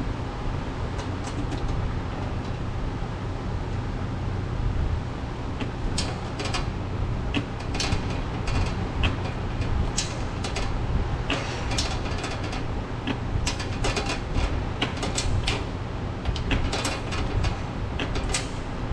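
Steady low rumble with a run of sharp clicks and knocks, starting about six seconds in and coming irregularly to the end.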